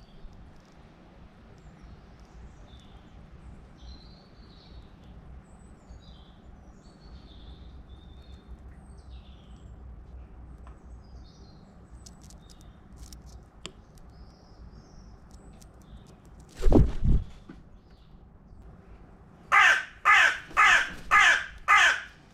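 Carrion crow cawing five times in quick succession near the end, after a loud low thump about two-thirds of the way through. Faint high chirps of small birds come and go before it.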